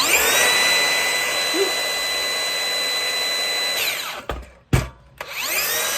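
Makita circular saw motor spinning up on the trigger and running at full speed for about four seconds with a steady whine, then winding down. Two sharp clicks follow, and the saw spins up again near the end. This is a test run of the newly replaced trigger switch.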